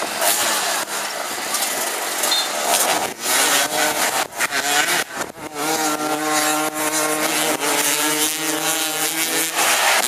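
Racing engines running past, with a rasping, saw-like noise; about six seconds in, one engine's steady pitched drone comes to the fore for a few seconds, then fades.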